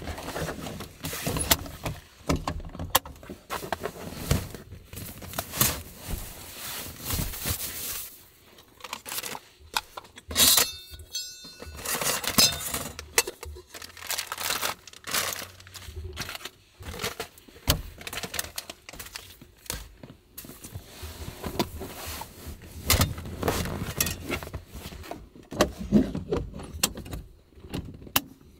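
Household and camping gear handled at close range: plastic bags rustling, wooden boards knocking into place and metal cookware clinking, in a steady run of small knocks and rattles with a ringing metallic clink about ten seconds in.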